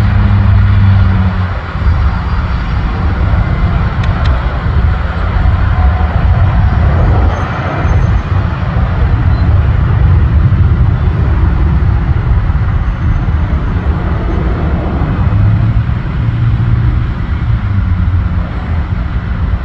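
Business jet's engines at takeoff power, a loud, steady noise through the takeoff roll and climb-out.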